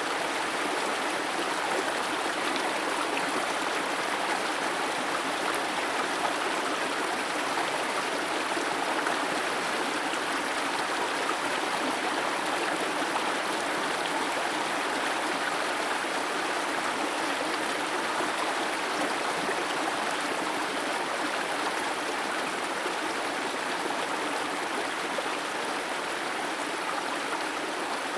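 Steady rushing of a waterfall, its water falling in thin threads down a rock face.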